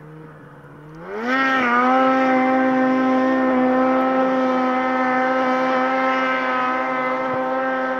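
Snowmobile engine revving up about a second in, then held at a steady high pitch.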